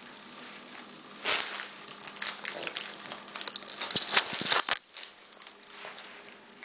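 Irregular rustling and clicking handling noises. A sharp rustle comes about a second in, and a quick run of clicks follows about four seconds in.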